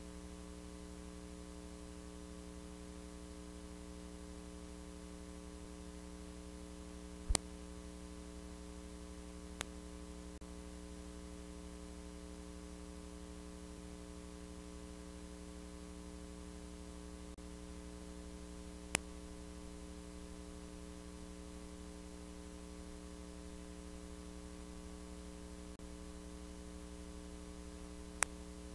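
Steady electrical mains hum with a faint hiss, broken by four sharp clicks scattered through it.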